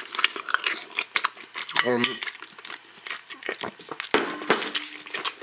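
Metal spoon clinking and scraping against a plate of food, a run of sharp, irregular clicks.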